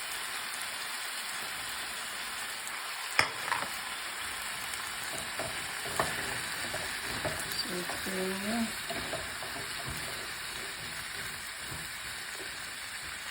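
Chicken wings with onion, garlic, potatoes and carrots sizzling steadily in a pan as they are stirred, with a sharp knock about three seconds in and a lighter one about six seconds in.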